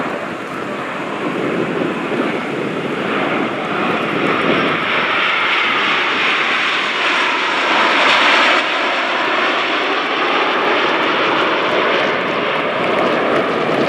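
Turbojet noise from a formation of Aermacchi MB-339 jets flying over, growing louder to a peak about eight seconds in and then staying loud and steady.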